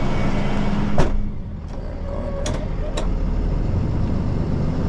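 Rollback tow truck's engine running with a steady hum. About a second in there is a sharp clunk, and the hum stops. The engine then settles to a lower, quieter rumble with a few light clicks, as the truck is pulled forward to walk the bed under the disabled pickup.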